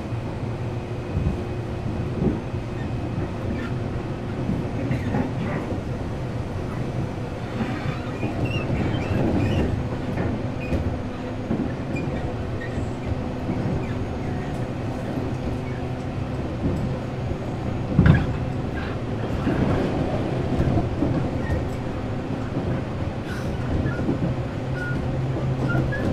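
Tobu 8000-series electric train running at speed, heard from inside the motor car: a steady rumble with a traction motor and gear hum, and scattered knocks of the wheels over rail joints. The loudest knock comes about eighteen seconds in.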